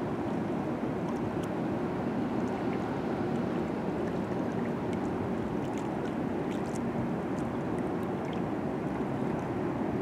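Choppy river water washing against the shore rocks: a steady rush of water with faint small splashes scattered through it.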